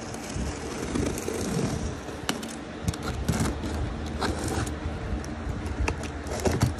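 Yellow utility knife scraping and slicing through packing tape along a cardboard box's seams, with scattered sharp clicks and cardboard rustling; the blade is dull and cuts poorly.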